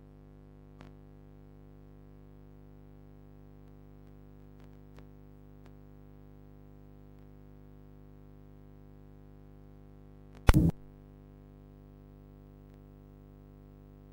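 A steady low hum made of several held tones, with a few faint clicks, and one loud, short crackle about ten and a half seconds in.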